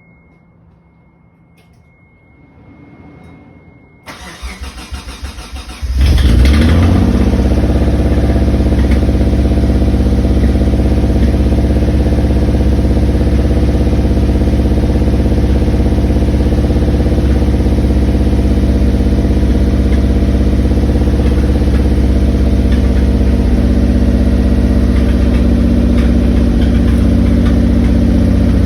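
1991 Mitsubishi 3000GT VR4's twin-turbo V6 cranking for about two seconds, catching about six seconds in and settling into a steady idle.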